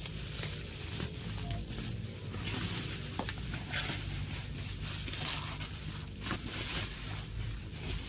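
Black bubble wrap and plastic packaging crinkling and rustling in irregular surges as hands pull it open and fold it back.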